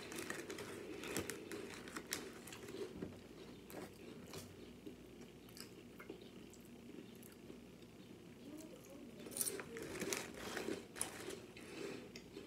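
A person chewing and crunching spicy queso crackers with tuna salad, a run of small sharp crunches and mouth clicks. The crunching is loudest about ten seconds in.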